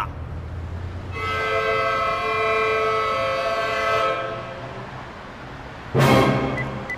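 A sustained multi-note chord, like a horn blast, holds for about three seconds and then fades: a dramatic sound-effect sting. Near the end comes one short sharp hit, followed by a faint beep from the mobile phone's keys.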